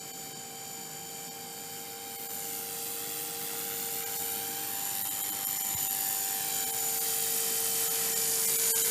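Blade 300 X electric RC helicopter in flight: the steady whine of its brushless motor and spinning rotors, growing gradually louder.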